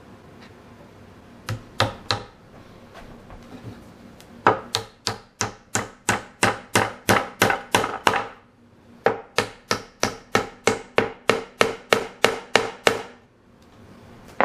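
Small steel hammer driving a glued wooden wedge into the end of a chair's leg tenon through the hardwood seat: two blows, then two quick runs of even blows, about four a second, with a short pause between.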